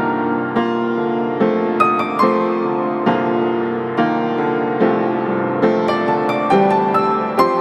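Background piano music: a slow, gentle melody of single notes and chords.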